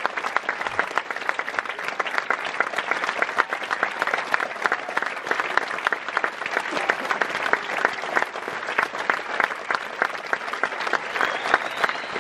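Large theatre audience applauding steadily: a dense, unbroken patter of many hands clapping, given to the cast at a curtain call.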